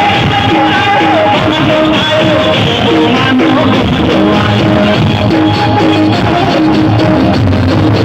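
Loud music: a melody of held notes over a full accompaniment.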